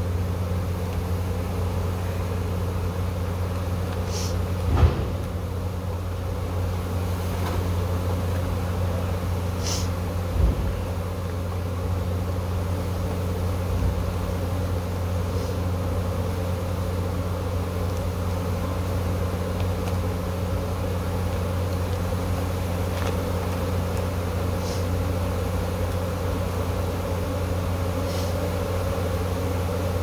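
Steady drone of a large honey bee swarm buzzing in the air around the comb, with two short knocks about five and ten seconds in.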